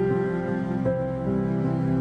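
Background music: slow, gentle melodic instrumental with sustained notes that change about every second.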